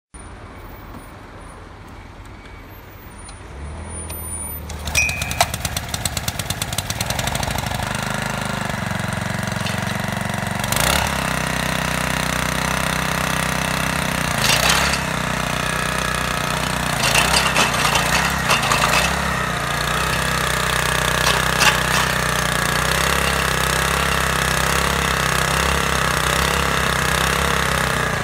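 The small 2-horsepower engine of a Robin PR200 mini tiller, fairly quiet for the first few seconds, then coming up to speed about four seconds in with a fast rattling clatter, and running steadily after that with occasional short knocks and clinks.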